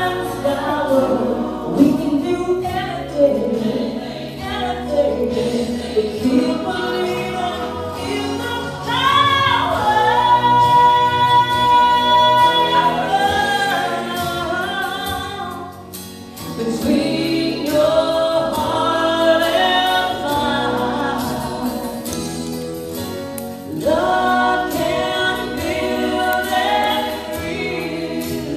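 Music with singing: a solo voice with choir-like backing voices, with one long held high note about ten seconds in.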